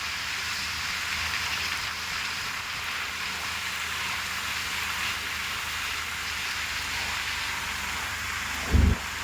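Heavy rain falling steadily, with one short low thump near the end.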